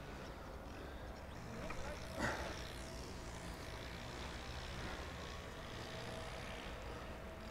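Kingsong S19 electric unicycle rolling over grass, its hub motor giving a faint steady whine over a low rumble of tyre and wind noise, with a short louder noise about two seconds in.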